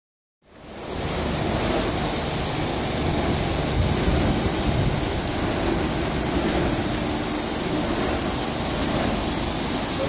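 Automatic carpet washing machine running, its rotating disc brushes scrubbing a wet carpet: a steady rushing noise with a low rumble underneath, fading in within the first second.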